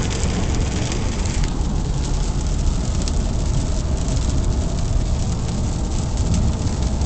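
Volkswagen car driving on a rain-wet road, heard from inside the cabin: a steady low rumble with tyre hiss.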